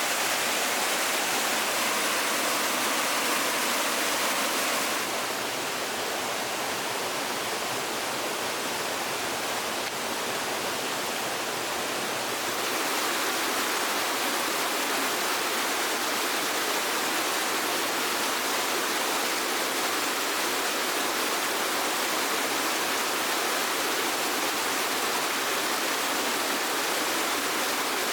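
Flowing water rushing steadily, like a stream or small waterfall; its tone shifts slightly about five seconds in and again about twelve seconds in.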